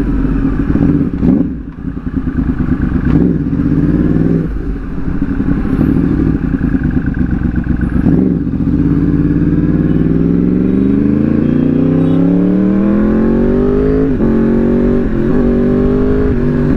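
Yamaha R1's inline-four engine heard from the saddle while riding: uneven throttle at low speed at first, then a long, steadily rising pitch as it accelerates from about nine seconds in, dropping back twice near the end as it shifts up.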